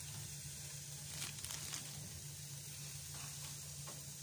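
Chops sizzling on the hot grate of a gas barbecue grill as they are laid on, with a few light clicks about a second and a half in, over a steady low hum.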